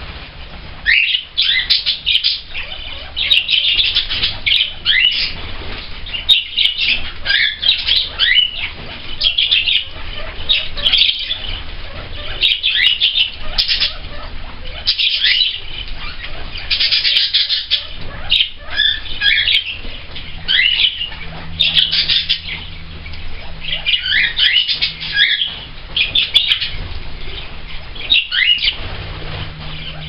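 Pet parrots in an aviary, a budgerigar and a cockatiel, chattering: a busy stream of short chirps, squawky chatter and quick up-and-down whistles, coming in bursts every second or so with brief gaps.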